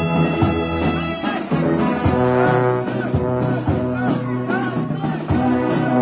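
Brass band playing held chords that change every second or two. Tubas close by carry a strong bass line, and a wavering note sounds on top.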